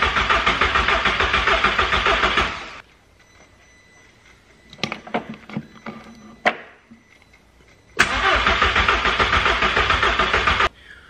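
Starter cranking the Volkswagen 1.8T four-cylinder engine in two bursts of about three seconds each, a fast even chugging, without the engine firing: it is being turned over with the fuel line disconnected to push old fuel out into a bottle. A few light knocks and clicks come between the bursts.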